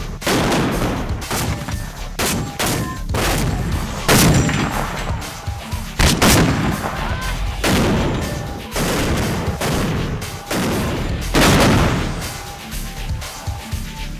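120mm rifled mortar firing repeatedly: a string of loud blasts, roughly one every second or less, each trailing off in a long rumbling echo.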